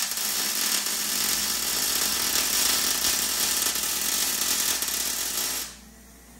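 Wire-feed welder arc running steadily while a C-notch plate is welded onto a truck frame rail, cutting off suddenly near the end as the welder lets off the trigger.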